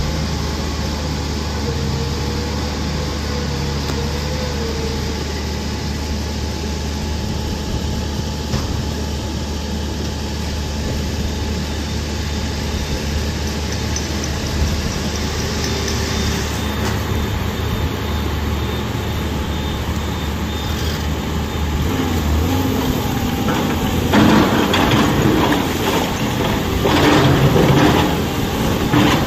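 Diesel engines of loaded tipper trucks running, a steady low drone. About 24 seconds in, a Tata Prima tipper comes close and the engine sound grows louder, mixed with knocks and rattles.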